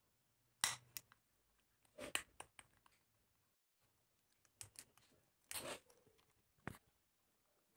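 Ringneck parakeet crunching and cracking a piece of blue plastic with its beak: a few scattered, faint, sharp crunches and clicks with pauses between.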